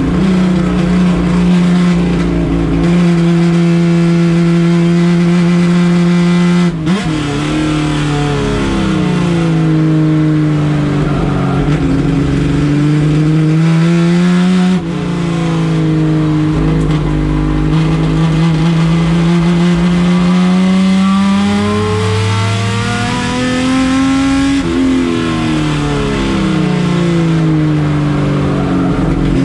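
Turbocharged Opala race car engine running loud at high revs. It holds a steady note for several seconds at a time, with a sharp drop in pitch about 7 s in and again about 15 s in. After that it falls and rises in several long sweeps of revving.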